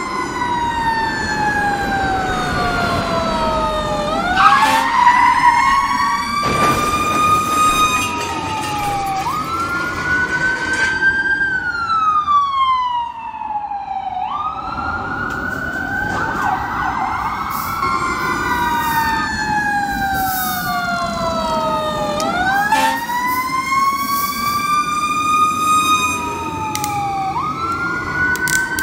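Electronic toy siren wailing: overlapping tones that each slide down over a few seconds and then jump back up, repeating. A few short plastic clatters from handling the toys come a few seconds in.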